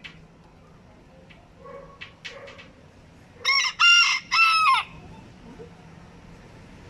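Barbu d'Anvers (bearded Antwerp bantam) rooster crowing once, a short high-pitched crow in three parts about three and a half seconds in. A few soft clucks come before it.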